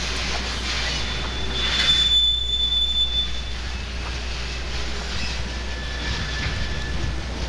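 Conrail freight train's covered hoppers and boxcars rolling past, their wheels squealing in thin high tones that come and go over a steady rumble of the cars. The squeal is loudest about two seconds in.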